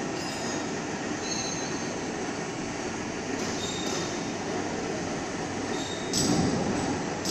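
Steady machinery noise with a few short, high metallic squeals, the clearest about six seconds in.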